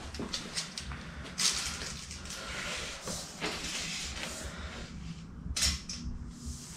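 Steel tape measure being drawn out and handled, with scattered light clicks, knocks and rustling. The sharpest click comes about five and a half seconds in.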